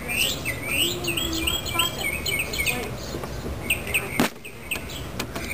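Small birds chirping in a quick series of short, hooked chirps, with one short knock about four seconds in.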